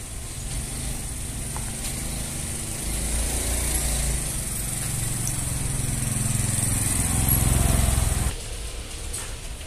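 An engine runs steadily with a low hum that grows louder over several seconds, then cuts off abruptly near the end.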